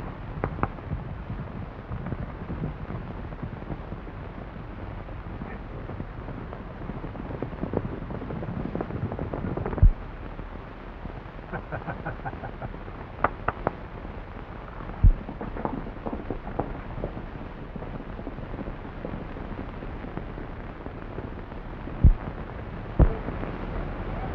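Steady hiss and rumble of an early-1930s optical film soundtrack, with horses galloping away at the start. A handful of sharp pops are scattered through it, the loudest ones late on.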